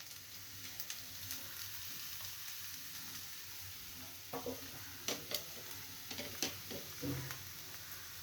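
Fish and vegetable fry sizzling softly in a pan, with a few clicks and scrapes of a utensil stirring it in the second half.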